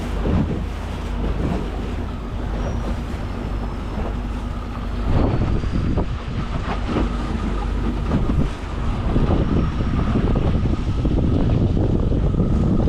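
Wind buffeting the microphone over the steady hum of a boat's engine running, with gusts swelling in the later part.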